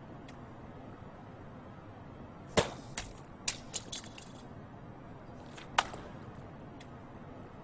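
Thrown knives striking their targets: one sharp, loud hit about two and a half seconds in, a few lighter clicks after it, and another sharp hit near six seconds.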